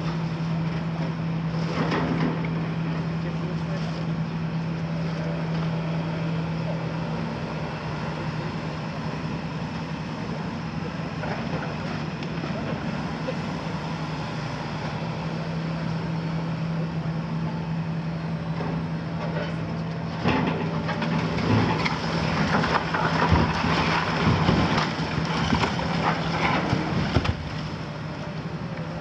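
Hitachi 350 demolition excavator's Isuzu six-cylinder diesel running with a steady hum while its hydraulic sorting grab works. About two-thirds of the way in comes a run of loud crunching and crashing as the grab breaks into a concrete wall and rubble falls, stopping shortly before the end.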